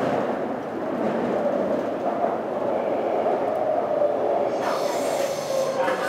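Taipei Metro train running through a tunnel: steady running noise with a whine that slowly falls in pitch. About four and a half seconds in, a high-pitched sound joins the run.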